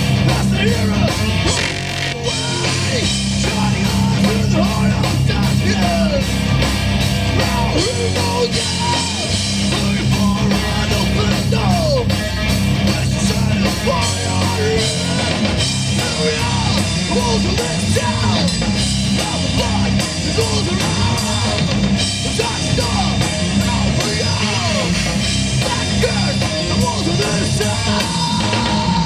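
Heavy rock band playing live at full volume: drums, amplified instruments and vocals.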